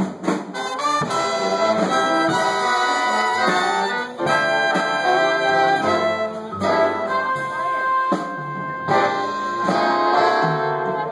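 Jazz big band playing: saxophone section, trombones and trumpets together in full chords over upright bass, opening with a few short accented hits before settling into held chords.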